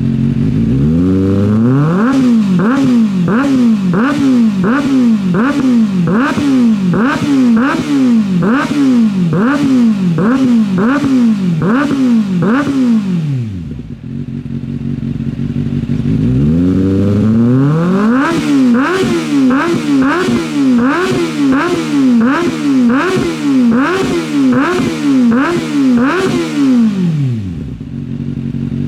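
Kawasaki 2024 ZX-6R's inline-four engine through a straight-through titanium IKAZUCHI sport-convert muffler, revved in quick repeated throttle blips, about three every two seconds. There are two long runs of blips, with the engine falling back to idle for a couple of seconds between them and again near the end.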